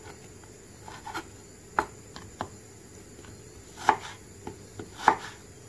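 Kitchen knife chopping raw chicken breast into small cubes on a wooden cutting board: scattered single knocks of the blade striking the board at irregular intervals, a handful in a few seconds.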